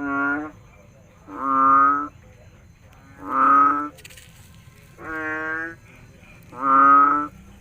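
A frog calling: five low, drawn-out, cow-like calls in a steady rhythm, one about every second and a half to two seconds.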